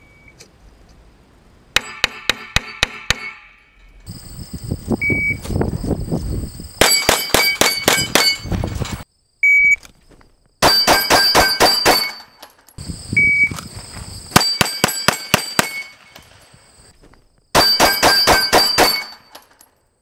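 Several strings of rapid pistol shots on steel plates, each hit followed by the plate's metallic clang and ring, about six hits per string a fraction of a second apart. A short electronic shot-timer beep comes before some of the strings.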